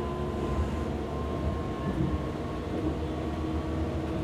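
Hamburg U-Bahn DT5 electric train's traction equipment humming: a steady low drone with thin, steady whining tones above it, from motors the uploader calls worn.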